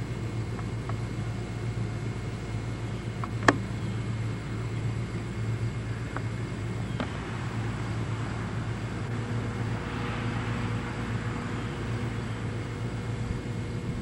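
Steady low hum and rumble of outdoor background noise, with one sharp click about three and a half seconds in and a fainter click about seven seconds in.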